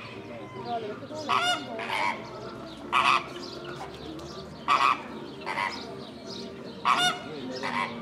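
Large waterbirds, flamingos or geese, honking loudly about seven times, several of the honks coming in pairs, over a steady background of fainter bird calls.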